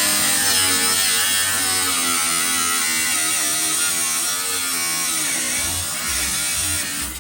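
Angle grinder with a cut-off wheel cutting metal on a rusted car body: a loud, steady motor whine with a high hiss, its pitch sagging under load about five seconds in, then cutting off abruptly at the end.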